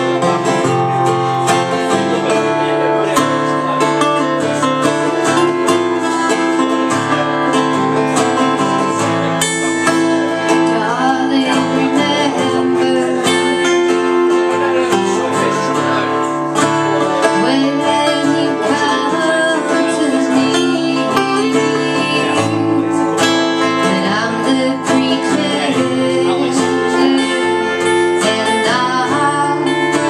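Two acoustic guitars played together live, with a steady level throughout and bass notes shifting every second or two.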